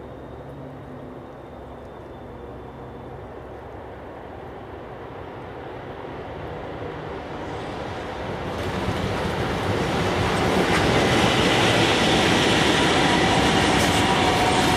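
A VL10U electric locomotive and its container train approach along the track, their rolling noise growing steadily louder. It reaches full loudness about ten seconds in as the train runs past, and then holds steady.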